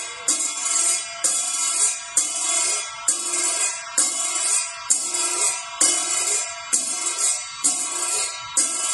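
Metal ritual percussion, cymbal-like, struck in a steady beat of about one stroke a second. Each stroke rings and shimmers until the next.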